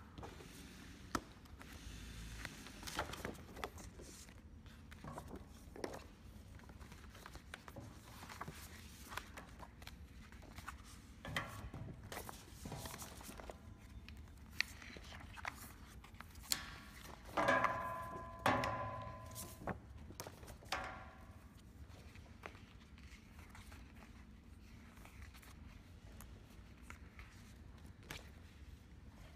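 Sheets of printed paper covers being handled and leafed through by hand, with scattered light clicks and knocks over a faint low hum. A brief, louder pitched sound comes a little past halfway.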